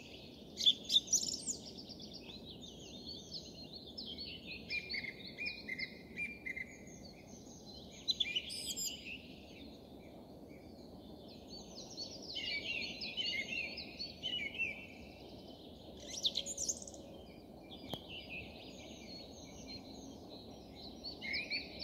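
Song thrush singing: bursts of quick, varied phrases of rising and falling notes every few seconds, with short pauses between them, over faint steady background noise.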